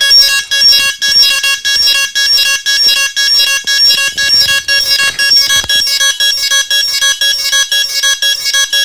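DJI Phantom 3 drone giving off loud, rapid, repeated electronic beeps, each made of several pitches at once. It is the beeping the aircraft makes over its firmware, a software issue that a firmware update cures.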